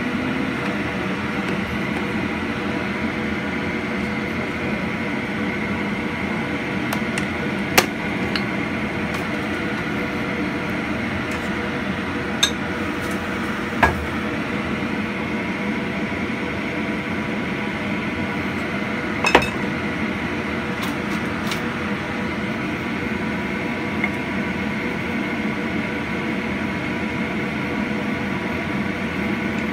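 Steady kitchen hum and hiss, with a handful of sharp metallic clinks scattered through it.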